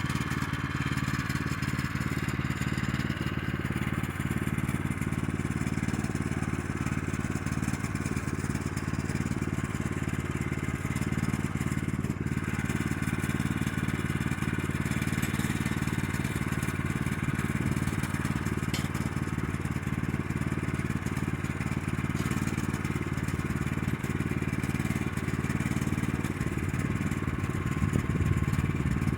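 Small gas engine of a Woodland Mills portable bandsaw mill running steadily at constant speed while the band blade saws through a cherry log.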